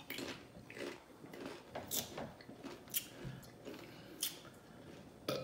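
Close-miked chewing of a Chipotle burrito: a string of short wet mouth smacks and clicks, roughly one a second. A burp begins right at the very end.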